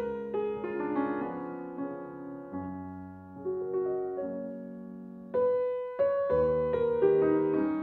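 Solo piano music: a slow melody with chords, notes struck and left to ring, with a pause of the quieter held notes before a new phrase begins about five seconds in.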